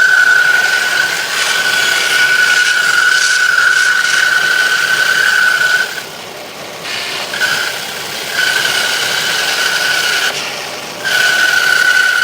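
General 490 bandsaw resawing a board into half-inch slices: a steady high whine with the rasp of the blade cutting through the wood. The cut breaks off about six seconds in, picks up unevenly, pauses briefly again near the end and resumes.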